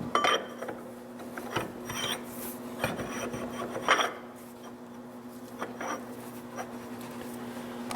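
Steel pin being worked through the freshly bored, snug-fitting holes of a cast iron planter hitch: metal rubbing and scraping in several short, irregular strokes, over a steady low hum.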